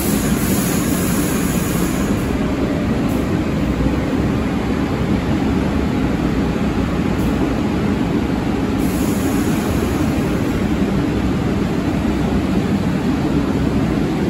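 New York City subway train running through the station: a steady rumble of steel wheels on the rails, with a high hiss that comes in near the start and again about nine seconds in.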